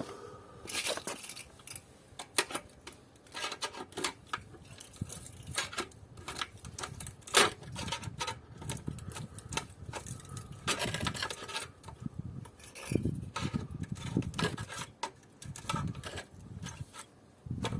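Irregular clanks, clicks and scraping of hand tools working against the metal parts of an old air conditioning unit as it is taken apart for scrap, with one sharp metal knock about halfway through.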